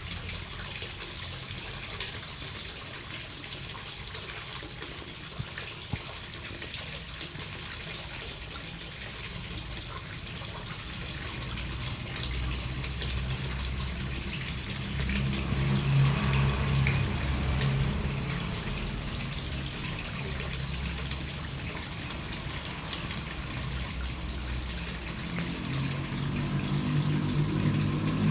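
Steady rain falling, an even hiss throughout. A low humming rumble swells under it about halfway through and again near the end.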